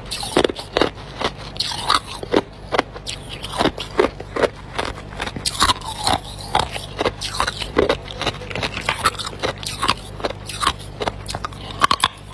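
Hard ice being bitten and chewed close to the microphone: rapid, irregular crunches and sharp cracks, several a second.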